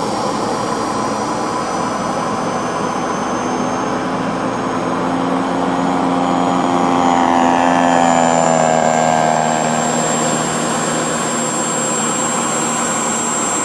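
Single-cylinder two-stroke DLE 55 petrol engine of a large radio-controlled Tiger Moth biplane model running steadily in flight. It grows louder as the plane passes close about eight seconds in, then its pitch falls as it flies away.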